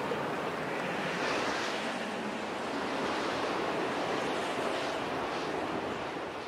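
A steady rushing wash of noise with no distinct events, fading out near the end.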